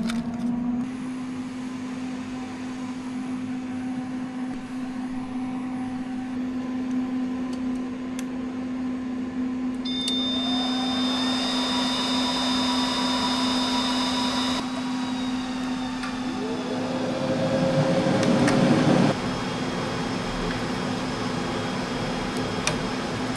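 Cooling fans of a Christie CP4230 digital cinema projector and Doremi ShowVault server powered up: a fan whine that rises at the start and settles into a steady hum. The noise turns brighter, with high whining tones, for a few seconds in the middle. A second fan whine rises about three-quarters of the way through and cuts off suddenly.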